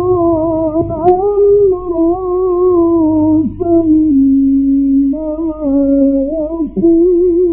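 A male Quran reciter chanting in the melodic mujawwad style, drawing out long held notes with slow ornamental turns and few syllables. A steady low hum runs beneath, and there is a small click about a second in.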